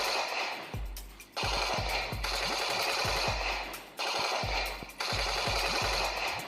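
Battery-powered toy machine gun playing its electronic rapid-fire sound effect through its small speaker, in repeated bursts with short gaps between trigger pulls.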